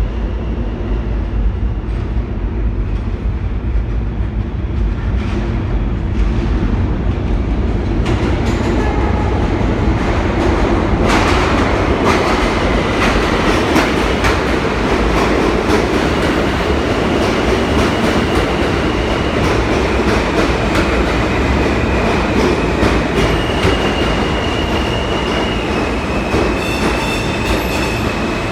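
New York City subway train running through the station, its wheels clattering over the rail joints and growing louder about eight seconds in. High, steady squealing tones join near the end.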